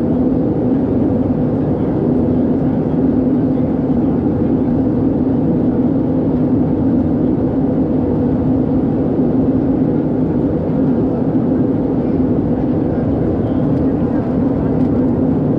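Cabin noise of an Airbus A320-214 in flight, heard from a window seat: the steady drone of its CFM56 engines with a constant low hum under a rush of air noise.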